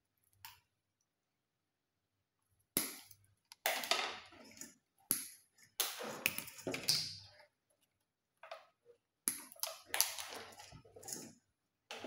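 Combination pliers cutting and stripping insulation from electrical wire: a click about half a second in, then an irregular run of short scraping noises.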